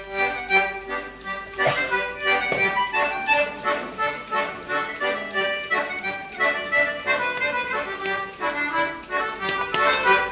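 Melodeon (diatonic button accordion) playing a hornpipe tune, a quick, even run of notes.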